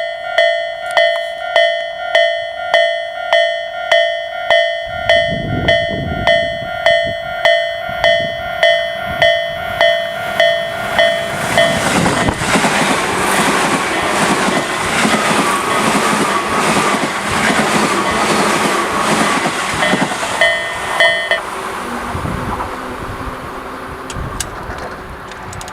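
Tobu Tojo Line level-crossing warning bells ringing at a slow, even rhythm, a mix of two electronic bell sounds, one an Isesaki-line type. A Tobu 9000 series train then passes over the crossing, its wheels and running gear rushing loudly and drowning out the bells about halfway through. A few more strikes are heard just before the train noise fades away.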